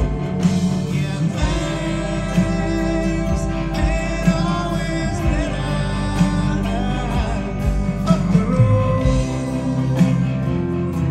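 Live Southern rock band playing through the PA: electric guitars, bass and drums, with a male lead vocal.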